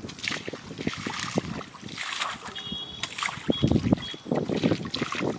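Shallow canal water splashing and sloshing in a run of short, irregular strokes as hands work a steel bowl through it, with louder sloshes around the middle and near the end.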